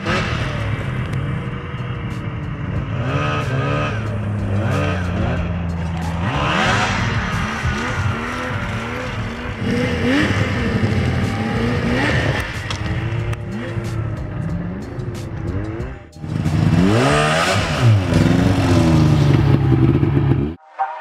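Snowmobile engine revving up and falling back again and again as the sled is ridden. There is a brief break about three-quarters of the way through, then another run of quick revs.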